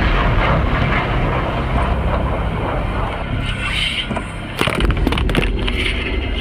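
A loud, low rumbling sound effect, with a quick run of sharp cracks about four and a half to five and a half seconds in.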